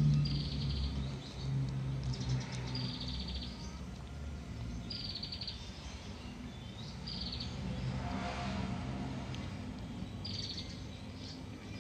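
Short trilled bird chirps repeating every two seconds or so, over the low crunching of a cat chewing dry kibble close by, loudest in the first second.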